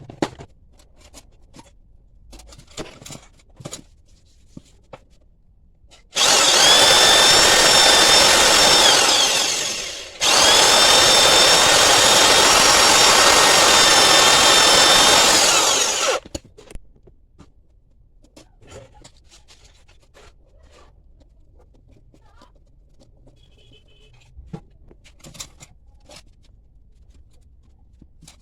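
Electric drill running in two long steady bursts, about four and six seconds, with a brief stop between them. Light handling clicks and taps come before and after.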